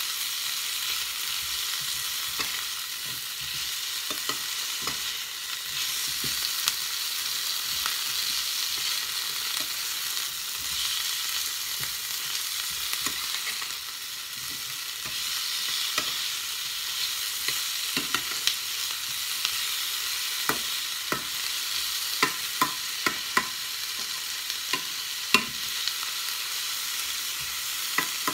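Whole prawns and chopped red onion sizzling in a stainless steel frying pan, with a steady frying hiss. A metal spoon scrapes and clinks against the pan as they are stirred, the clinks coming more often in the second half.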